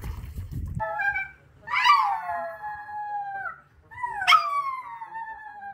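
Small dog howling: a short note, then two long howls that slide down in pitch, each lasting about two seconds.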